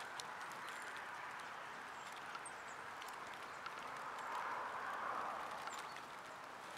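Small clicks and taps of European goldfinches pecking and cracking seeds on a wooden bird feeder, with a few faint high chirps, over a steady rushing background that swells about four to five seconds in.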